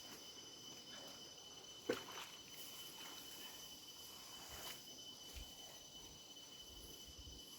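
Faint, steady, high-pitched insect trilling, crickets or similar, with a few soft rustles about two and four and a half seconds in.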